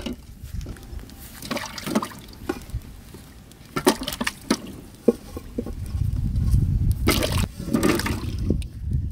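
Water sloshing and splashing in irregular bursts, over a low rumble.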